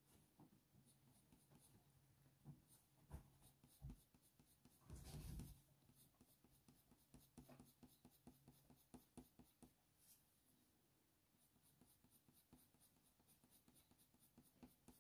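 Faint scratching of a Faber-Castell Polychromos coloured pencil (Cold Grey I) laying down many short, light strokes on hot-press watercolour paper, following the fur direction. One louder rub comes about five seconds in.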